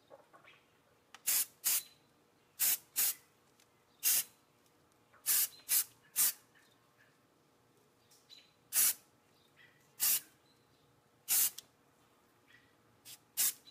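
Aerosol can of Rust-Oleum primer sprayed in about a dozen short bursts of hiss, each a fraction of a second long, with pauses of a second or so between them.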